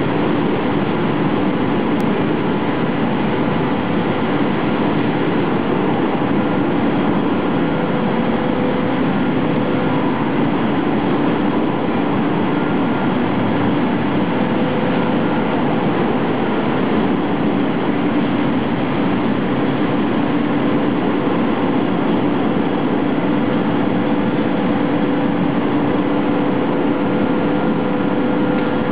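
Twin crosslappers of a nonwoven line running, their conveyor belts and carriages laying fibre web: a loud, steady machine noise with a low hum.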